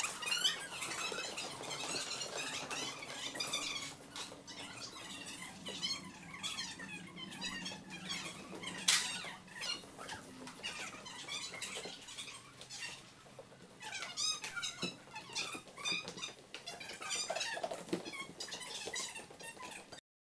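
Shoe soles squeaking on a hall floor under dancing feet: many short, high chirping squeaks in clusters that come and go, over a faint steady hum.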